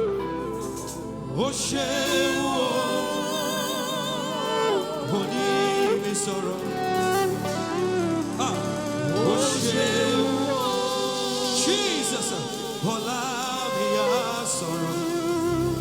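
Live gospel singing with vibrato over instrumental backing. The deep bass drops out about three seconds in and returns near the end.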